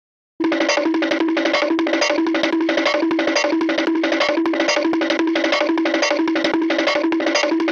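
Short comedy music cue: a bouncy plucked-string tune on two alternating notes over quick, even wood-block-like ticks, starting about half a second in after a moment of silence.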